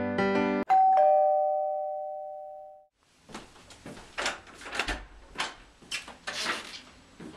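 Two-tone ding-dong doorbell chime, a high note then a lower one, ringing out for about two seconds just after piano music stops. Then footsteps and soft knocks as the front door is opened.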